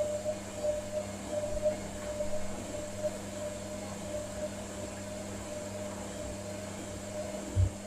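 Hotpoint Ariston Aqualtis washing machine on its wool programme, its drum motor humming steadily as the drum turns slowly with water and laundry inside. A dull low thump comes near the end.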